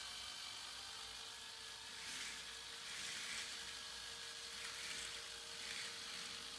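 K'nex roller coaster model running: a faint rushing hiss of the plastic train rolling along the track, swelling twice, over a faint steady hum.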